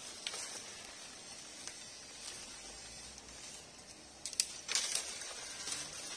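Dry branches and leaf litter rustling and crackling as a person pushes through brush, with a louder burst of crackles about four and a half seconds in.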